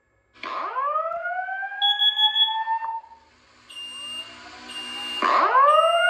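Fire alarm speaker strobe sounding a whoop tone, the carbon monoxide alert that comes before the voice announcement. A rising sweep starts about half a second in and climbs for some two and a half seconds, and a second sweep begins about five seconds in. A higher electronic beep repeats about once a second in the second half.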